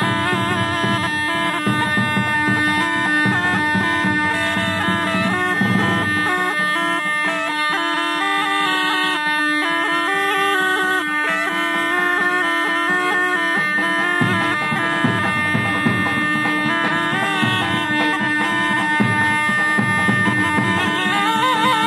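A been (pungi), the snake charmer's gourd pipe, playing a wavering, ornamented melody over a steady drone.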